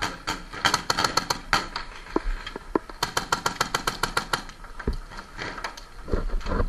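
Paintball markers firing in rapid strings of sharp pops, at their fastest about eight shots a second, with gaps between strings.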